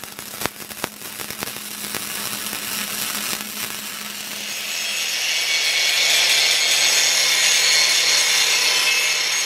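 Electric arc welding on steel, an irregular crackle over a steady hum, for roughly the first five seconds. Then an angle grinder grinds the fresh weld on a steel bar, a steady, louder high hiss over the motor's tone.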